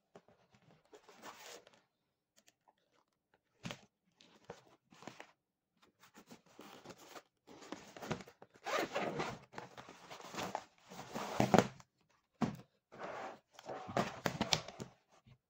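The zipper of a fabric pouch with a clear plastic window is pulled open in a series of short pulls, with plastic rustling as the motocross pads inside are handled and drawn out. A couple of sharp clicks come from the hard shells being handled.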